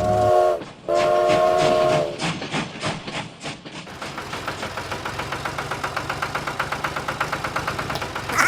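Train horn sounding twice, a short blast then a longer one, followed by the fast, even clickety-clack of train wheels rolling over rail joints.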